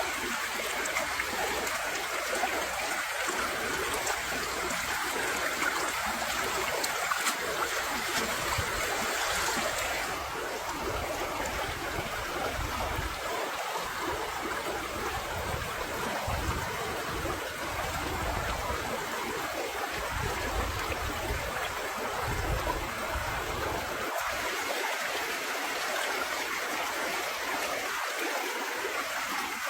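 Steady running water, a continuous trickling flow.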